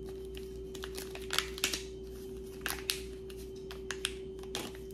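Scattered small clicks and crinkles of jewelry and plastic packaging being handled, over a faint steady hum.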